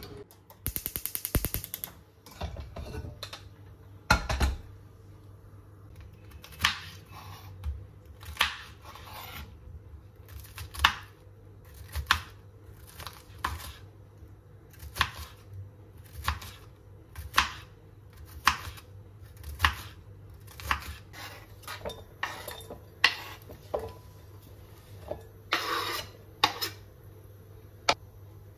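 Kitchen knife chopping bitter gourd on a wooden cutting board, a sharp chop about once a second. A fast run of clicks comes about a second in, and a short rattle near the end.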